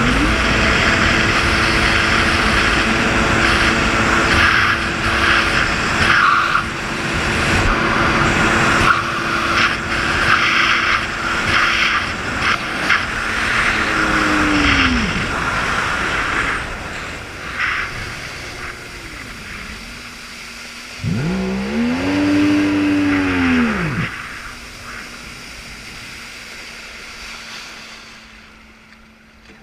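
Jet ski engine running under a loud hiss for the first half, then revved twice, each rev rising and falling in pitch, with a steady idle between. The level drops off near the end.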